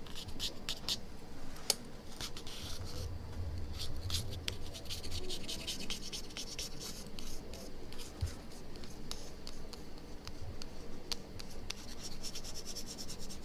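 Hand tool scraping and rubbing old glue residue off an iPhone 6 Plus LCD: a run of light scratching strokes and small clicks.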